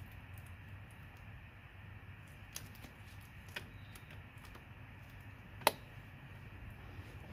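A few faint, sparse clicks of tools and parts being handled during brake assembly, with one sharper click a little under six seconds in, over a low steady hum.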